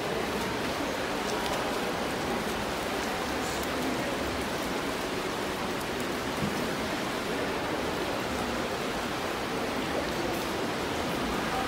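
Steady, even wash of water noise in an indoor swimming pool: swimmers splashing down the lanes and the pool water churning.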